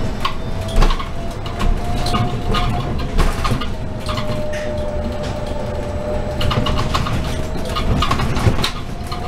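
Proterra ZX5 battery-electric bus drivetrain whining from inside the cabin. It holds one tone that dips slightly in the middle and climbs again near the end. Under it are road rumble and frequent short rattles and clicks from the bus interior.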